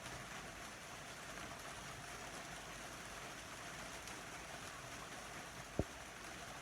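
Steady rain falling, an even hiss. A single short, low thump comes a little before the end.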